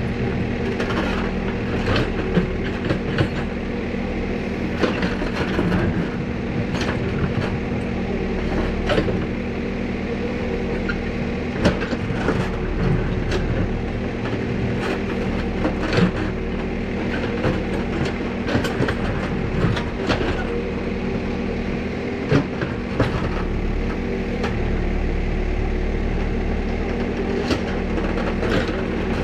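Backhoe loader's diesel engine running steadily under load while its backhoe arm digs, with irregular sharp clanks and knocks from the bucket and arm working in soil and stones.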